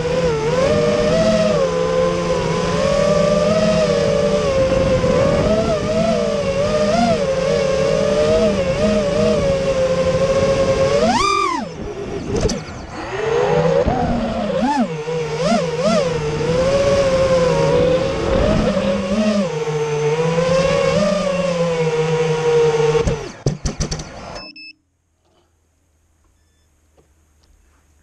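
Five-inch FPV racing quadcopter's four Emax RS2306 2400kv brushless motors with Dalprop Cyclone props whining, heard from the onboard GoPro. The pitch swells and dips with the throttle, with a sharp rise and fall about eleven seconds in. The motors stutter and cut out about twenty-four seconds in, leaving near silence.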